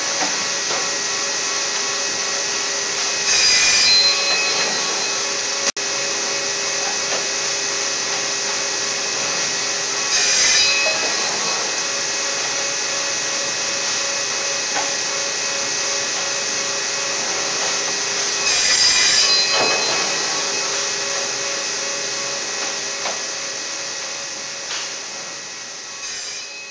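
Accu-Systems 2S CNC panel saw running steadily, with louder passes about 4, 10 and 19 seconds in as its blade saws through an edge-glued wood panel. The sound fades toward the end.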